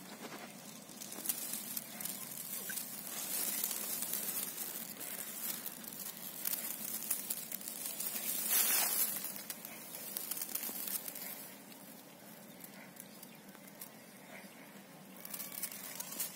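Dry wheat ears and stalks rustling and brushing close against the microphone, full of soft crackles, with a louder swish about nine seconds in and quieter rustling over the last few seconds.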